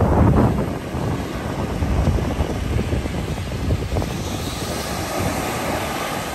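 Small waves breaking and washing up a sandy beach, with wind buffeting the microphone in gusts, strongest right at the start and again about two seconds in.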